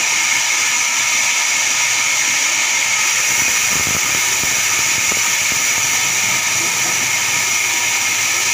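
Large sawmill band saw running and ripping a log slab that is being pushed through the blade: a loud, steady high-pitched whine and hiss.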